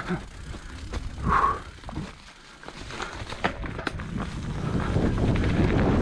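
Mountain bike rolling down a trail, with tyre and trail rumble and wind on the camera microphone growing steadily louder as it picks up speed. Scattered sharp clicks and knocks come from the bike over the ground. A short call-like sound comes about a second and a half in.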